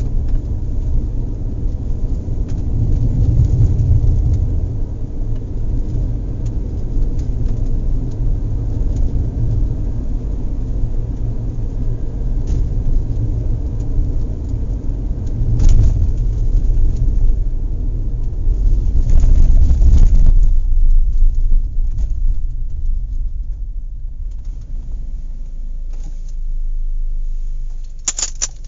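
Inside a moving car on a rough road: a steady low road rumble with knocks and rattles from the shaking car and its load. The rumble swells twice past the middle, then eases off to a quieter hum, with a short burst of sharp clicks near the end.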